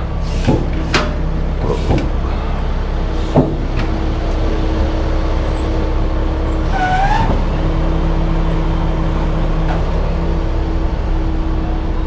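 A heavy tow truck's engine running steadily, with a few sharp metal clanks in the first few seconds and a short squeak about seven seconds in.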